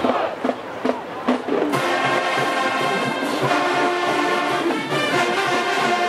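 A marching band's brass section and drums playing. A few separate sharp hits come first. Then, just under two seconds in, the full band comes in with loud, held brass chords over a steady drum beat.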